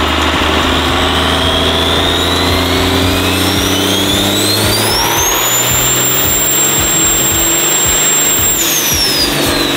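Turbocharged Cummins inline-six diesel at full throttle on a chassis dyno, its pitch climbing slowly under load. The turbo whistle rises to a very high pitch, holds, then drops away about a second before the end as the pull ends. The run is made with air pressure on the fuel tank to cure fuel starvation.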